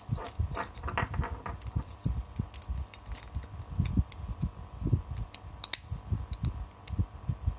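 Beyblade parts and a 3D-printed Beyblade layer being handled and fitted together, making irregular light clicks and taps with small knocks.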